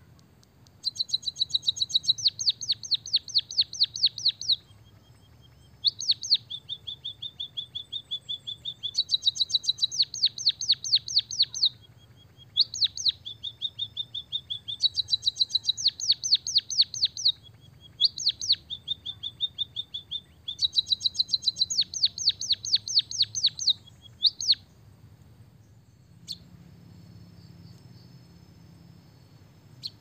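White-headed munia (emprit kaji) singing a canary-style song: long rolling trills of fast, even, sharp notes, alternating with a lower steady whistle, repeated in about half a dozen phrases with short pauses between them. The bird falls silent for the last few seconds.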